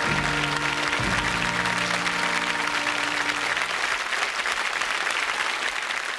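Studio audience applauding over the sitcom's closing theme music. The music ends about three and a half seconds in and the applause carries on alone.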